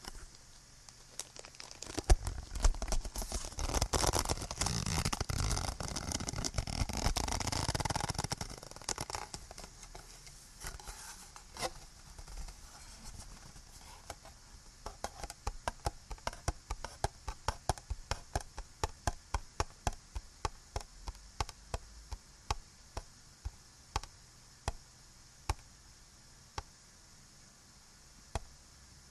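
Close-miked handling of small objects: several seconds of dense crinkling and scraping, then a long run of light taps about two a second that thins to a few single taps near the end. A steady recording hiss runs underneath.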